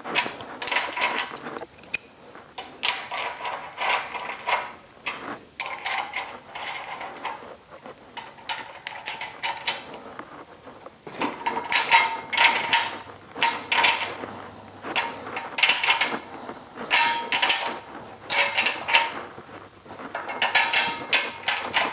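Ratchet wrench clicking in repeated short runs of about a second each as nuts are run down and tightened in a crisscross sequence on the log splitter's cast cover.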